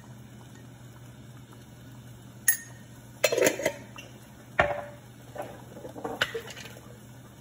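A metal spoon and kitchen containers clinking and knocking: a handful of sharp clinks, some with a short metallic ring, starting about two and a half seconds in, over a steady low hum.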